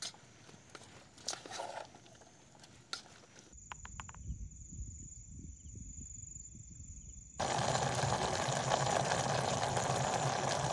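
A spatula stirring and scraping dry fish in a small camping pot. Then a steady high-pitched insect trill over a low rumble. From about 7 s in, and loudest, the dry fish gravy boils hard in the pot with a steady bubbling hiss.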